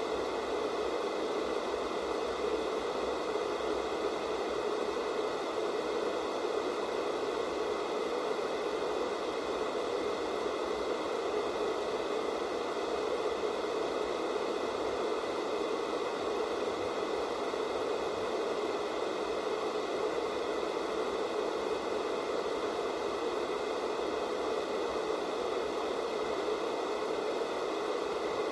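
Analog television static: the steady hiss of a TV tuned to no signal, an even rushing noise centred in the low-middle range with no changes.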